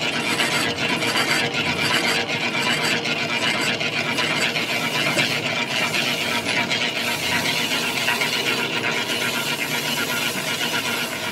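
Lathe boring bar cutting the bore of a large spoked gear wheel's hub: a steady, harsh metal-on-metal scrape full of fine rapid ticks.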